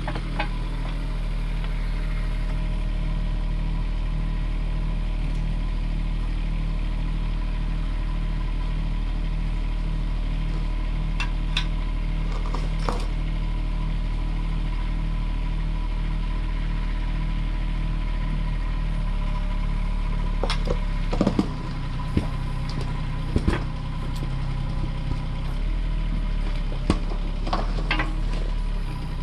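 Kubota U10 mini excavator's diesel engine running steadily as the machine lifts an emptied heating-oil tank out of the ground on a strap. The engine note changes a little past two-thirds of the way in, and from then on several sharp metallic knocks and clanks come, with a few earlier ones.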